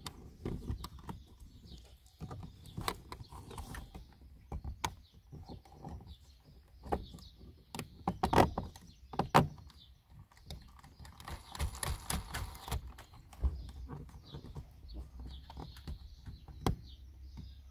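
Hands fitting a 12V accessory socket into a plastic trunk trim panel: irregular clicks, knocks and rustling as the socket, its wires and the retaining ring are handled against the hard plastic, with a few sharper knocks near the middle.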